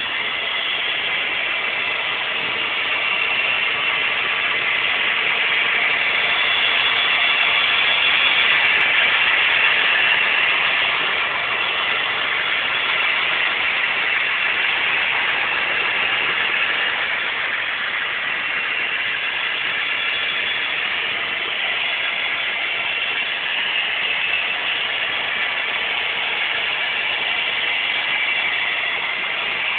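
Model trains running on the layout's track: the steady whir of their small electric motors and metal wheels on the rails, swelling a little about seven to ten seconds in.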